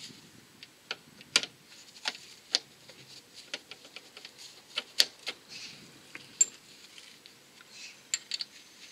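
Light metallic clicks and taps at irregular intervals as a new crankshaft damper pulley is fitted onto the crankshaft and its bolt is started by hand.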